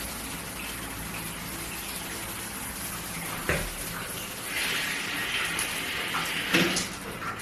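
Water from a shower head spraying steadily, getting louder about four and a half seconds in, with a sharp knock about three and a half seconds in and another about six and a half seconds in.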